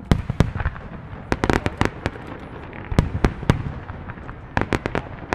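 Fireworks bursting: sharp bangs, some single and some in quick clusters of three to five, scattered irregularly through the few seconds.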